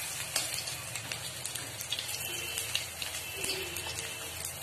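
Gram-flour pakoras sizzling in hot oil in a kadhai, a steady crackle with many small pops.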